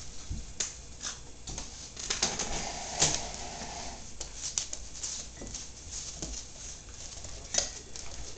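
Border collie puppies play-wrestling on a hard wooden floor: claws clicking and scrabbling and bodies scuffling in irregular bursts. The sharpest knocks come about three seconds in and again near the end.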